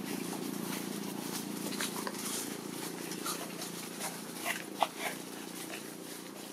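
A few short, sharp animal calls, the loudest near five seconds in, over a steady low background hum.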